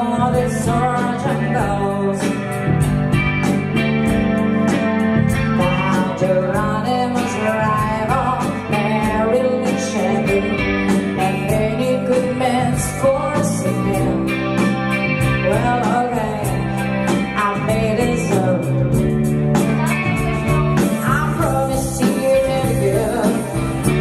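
Live band playing: a woman singing over electric guitar, bass guitar and drums, with a steady beat.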